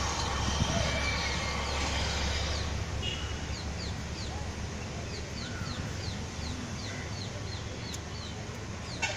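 A bird calling over and over with short, high, falling chirps, a few each second, over a low rumble that fades after the first three seconds. A short, loud toot comes right at the end.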